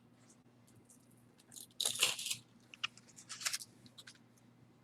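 Small pieces of costume jewelry being handled: light metallic clinks and short rustles, the loudest spell about two seconds in and another near three and a half seconds.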